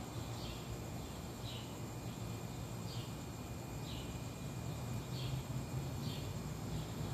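A short, high chirp repeats about once a second, likely a night-calling insect or small animal, over a steady low hum.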